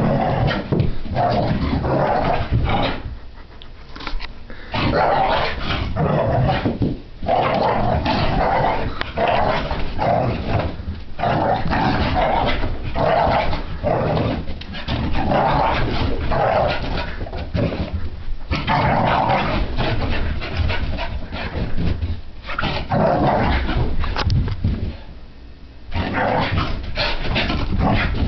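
Brittany spaniel puppy barking and growling over and over in an excited play frenzy, with brief lulls about four seconds in and near the end.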